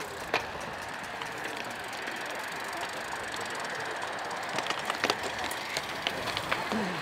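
Cyclocross bikes riding past on a dry dirt course: tyres rolling over the ground with sharp clicks and rattles from the bikes, which bunch together about five seconds in as riders come close.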